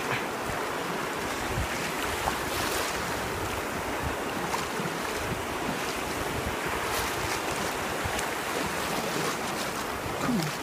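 Shallow surf washing over a pebble beach, a steady rush of water with wind buffeting the microphone.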